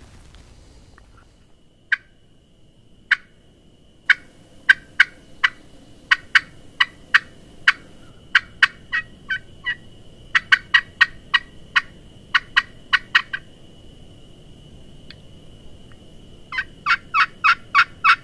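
Hen turkey clucks and yelps made on a hunter's turkey call: two single sharp notes, then a long run of short, sharp notes at about three a second, and a quicker run of cutting near the end.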